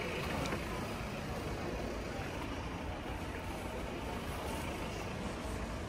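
Steady low rumble of outdoor street ambience, even and without distinct events.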